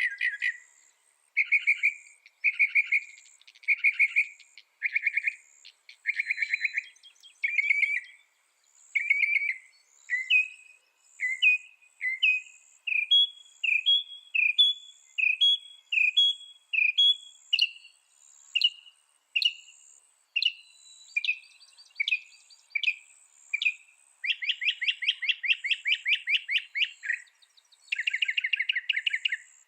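Mockingbird singing: short phrases, each repeated several times before switching to a new one, the notes shifting up and down in pitch, then near the end long fast trills of rapid notes.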